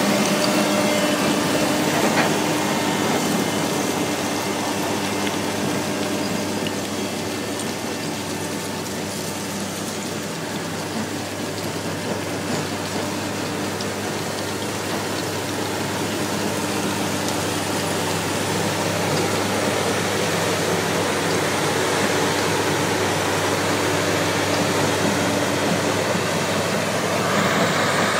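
Extec C10 mobile jaw crusher running steadily while crushing concrete and brick rubble: a diesel engine hum under the rattle of broken rubble pouring off the discharge conveyor onto the stockpile.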